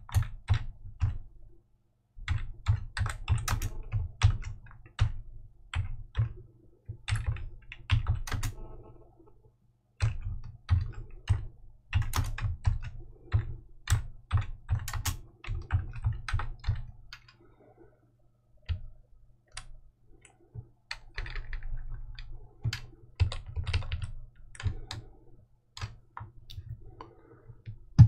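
Typing on a computer keyboard: runs of quick keystrokes with a few short pauses.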